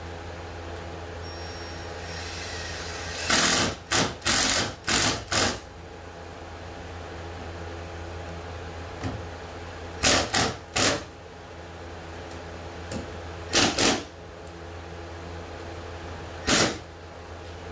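Cordless drill/driver running in short bursts as it drives screws into a canoe's new vinyl gunwales: a run of five quick bursts a few seconds in, then three, then two, and a last single one near the end.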